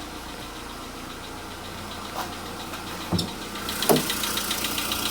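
A VW Polo Sedan's CFNA 1.6-litre four-cylinder petrol engine idling shortly after a cold start, with a light, fast, even tapping, typical of hydraulic lifters not yet full of oil. The tapping stands out more from about four seconds in, and there are a couple of dull knocks just before it.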